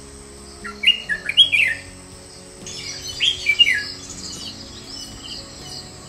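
Red-whiskered bulbul singing: two short, loud phrases of quick rising and falling whistled notes, the first about a second in and the second near three seconds. Fainter, high, repeated chirps continue behind them.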